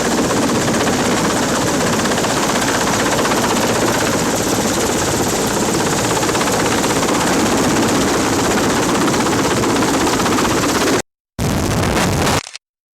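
Helicopter engine and rotor noise from on board, loud and steady, cut off abruptly about eleven seconds in, then back briefly before cutting off again.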